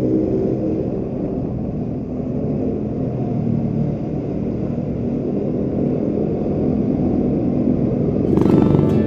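Motorcycle engine running steadily while riding, with rumbling wind and road noise on the camera microphone. Music comes in near the end.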